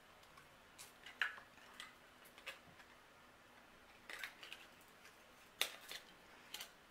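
Faint scattered clicks and light ticks from handling metal-framed sunglasses while a price tag's string is worked off the frame; the sharpest click comes late on.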